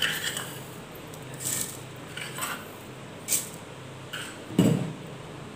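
Sugar being tipped and spooned from a steel bowl into a plastic mixer jar: a few short, soft scraping sounds, then a dull thump near the end.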